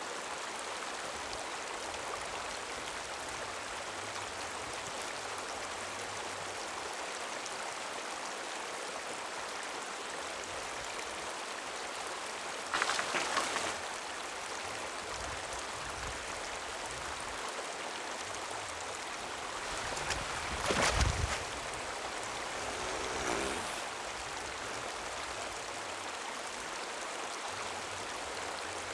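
Steady rush of flowing water, with two brief louder noises, about halfway through and again about two-thirds of the way through.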